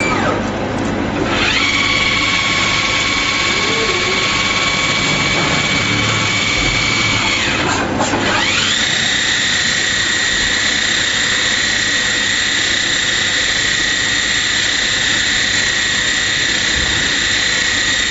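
CNC lathe running a machining cycle, its spindle whine climbing to a steady high pitch about a second and a half in. The whine drops away near eight seconds, then spins up again and holds at a slightly lower pitch.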